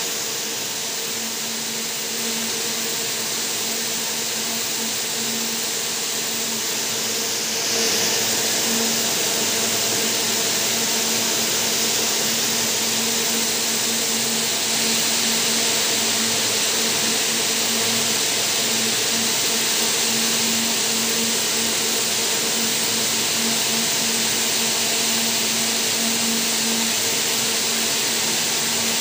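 Rows of yarn winding machines running, with swifts and bobbins spinning: a steady mechanical whir with a low hum, a little louder about eight seconds in.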